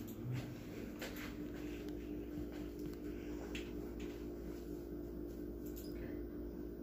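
Steady low electrical hum of room tone, with a few faint clicks.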